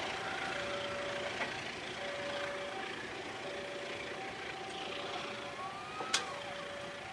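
A two-tone electronic warning alarm alternating high and low about once a second, over the fading running noise of a passenger train rolling away along the track. A sharp click sounds about six seconds in.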